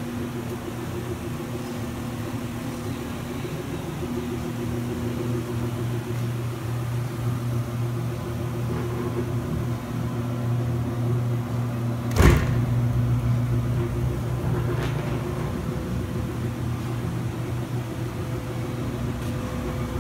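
Kemper SP125L spiral mixer's motor running with a steady hum, with one sharp knock about halfway through.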